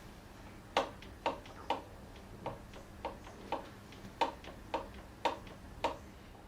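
About ten short, sharp clicks or taps at uneven intervals, a little under two a second, over a low steady background hum.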